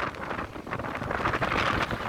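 Monsoon wind and heavy rain, the wind buffeting the microphone; the rushing noise swells and dips in gusts about every half second to a second.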